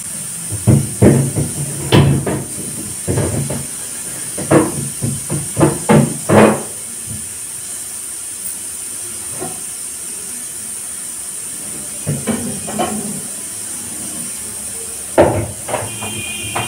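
Knocks and clatter of things being handled inside a refrigerator during cleaning, in irregular clusters: many during the first seven seconds, a few more later, over a steady high hiss.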